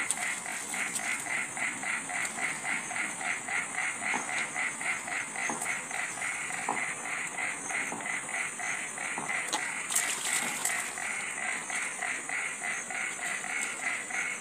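Animal chorus: a call repeating evenly about four times a second over a constant high hiss, with a short louder patch about ten seconds in.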